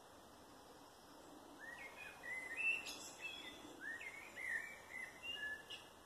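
Woodland birds singing: faint, short curved chirps, one after another, starting about a second and a half in, over a quiet forest background.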